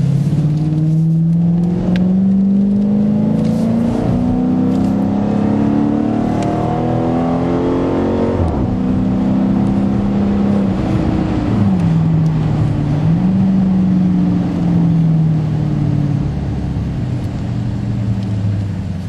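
Dodge Challenger R/T's 5.7-litre HEMI V8 through a Zoomers aftermarket exhaust, accelerating hard with its note climbing for about eight seconds, then dropping sharply at an upshift. It then runs fairly steady, with a brief dip and recovery in pitch, and eases off near the end.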